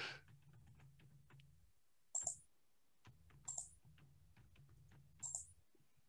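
Near silence broken by three faint clicks at a computer, about a second and a half apart, over a faint low hum.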